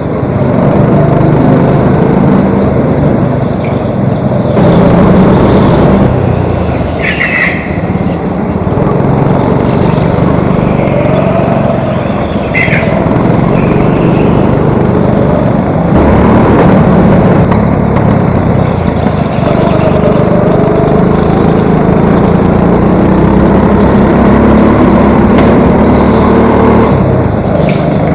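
Go-kart engines running hard on track, the pitch rising and falling with throttle through the corners. Brief high squeals break through twice.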